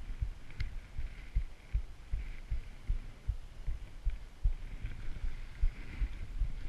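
Skiing heard on a helmet-mounted camera: irregular low thumps about two to three times a second from skis and body motion jolting the camera, over a faint scraping hiss of skis on snow.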